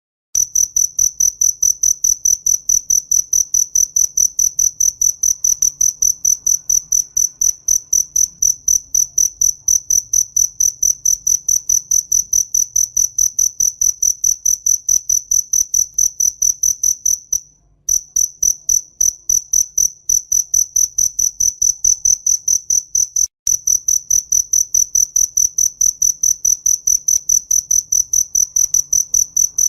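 A cricket chirping: rapid, evenly spaced, high-pitched chirps on a single clear tone, breaking off briefly a little past halfway.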